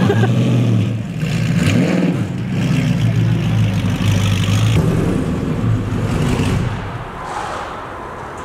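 Car engine running at low speed with a couple of light rises in revs. About seven seconds in it gives way to a quieter steady hum.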